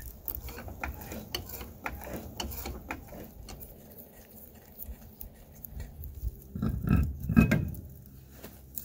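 Lug nuts being unthreaded by hand from a truck's front wheel studs, with small metal clinks, then the heavy tire and steel wheel being pulled off the hub with a couple of louder low thumps about seven seconds in.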